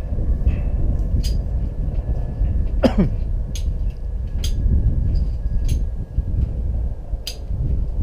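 Wind buffeting the microphone as a steady low rumble, with a few sharp metallic clicks of harness clips and buckles being fastened and adjusted. About three seconds in there is a short sound that slides downward in pitch.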